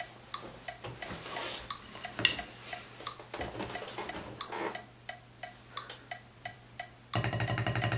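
Metronome clicking at 176 bpm, about three even clicks a second, while wooden drumsticks clatter and knock as they are picked up off the practice pad. About seven seconds in, fast, even single strokes on the rubber practice pad start, much louder than the clicks.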